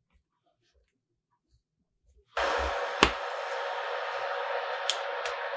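Induction cooktop switched on at high power to heat oil: a little over two seconds in, its cooling fan starts with a sudden steady whir that keeps running, with a few sharp clicks over it.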